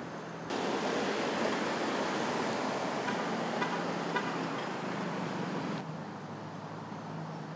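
Outdoor street ambience: a steady rush of noise like distant traffic, which steps up in level about half a second in and falls back about six seconds in, with a few faint ticks in the middle.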